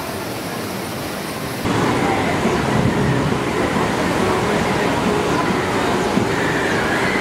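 Steady outdoor crowd ambience: the murmur of many people's voices blending into a continuous hubbub. About a second and a half in it jumps abruptly louder, after a quieter steady hiss.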